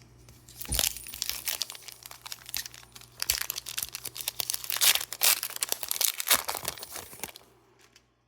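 Crinkling and tearing of a Pokémon card booster pack's foil wrapper as it is handled and opened, in a dense run of crackles that fades out near the end.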